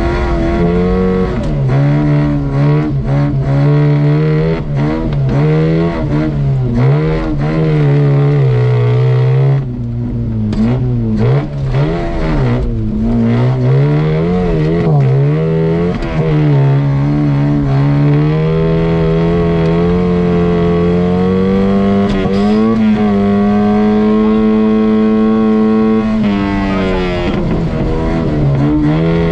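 An off-road competition car's engine heard from inside its cab, revving up and down over and over as the car is driven across rough ground, with knocks over the bumps. In the second half the revs climb steadily and are held high, then drop near the end.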